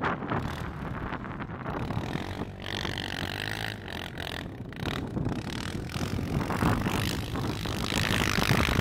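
TGB Target 550 quad's single-cylinder four-stroke engine revving as the ATV ploughs through deep snow, its note rising and falling, with wind buffeting the microphone.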